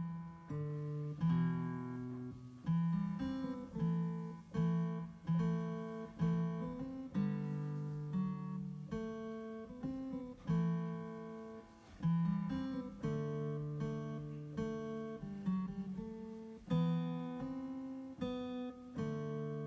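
Background music played on an electronic keyboard in a plucked, acoustic-guitar-like voice: chords and bass notes struck about once a second, each ringing and fading before the next.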